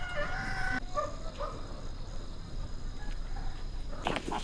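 A rooster crowing, its call ending within the first second, followed by fainter farmyard animal sounds. A louder, noisier sound starts near the end.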